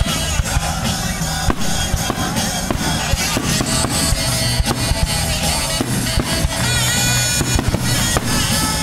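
Aerial fireworks bursting and crackling, many sharp bangs in quick succession, over loud music with a heavy drum beat.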